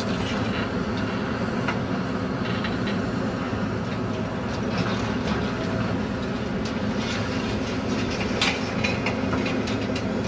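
Diesel engine of a demolition excavator running steadily while its grab handles rubble and scrap. Scattered clanks and clatters, most in the second half, with the sharpest about eight and a half seconds in.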